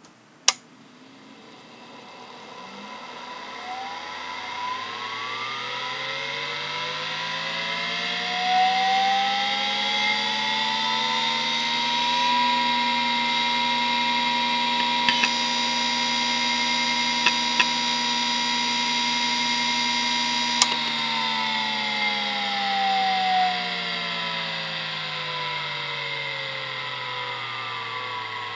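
Hitachi DK522C-10 5.25-inch SCSI hard drive spinning up with a whine that rises in pitch over about twelve seconds, after a sharp click just after the start. It holds a steady whine at its 3600 rpm running speed with a few light clicks. After a sharp click about twenty seconds in, the whine falls steadily as the platters spin down.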